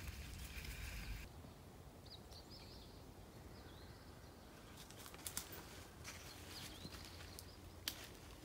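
A small bird chirping a few short, high calls over faint outdoor background noise, with a couple of sharp taps about five and eight seconds in.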